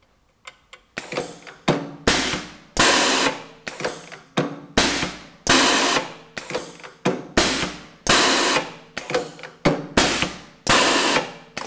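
Joraco INDEX-AIRE Model 2000 air-driven rotary indexing press cycling in auto mode, the ram stroking and the six-station table indexing over and over. It gives a regular run of short hissing clacks, about one to two a second, after a few small clicks at the start.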